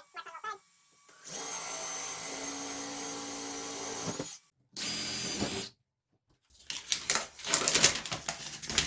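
Power drill boring holes through a wooden door for a mortise lock's handle and key: a steady run of about three seconds, a short second run, then irregular knocking and rattling near the end.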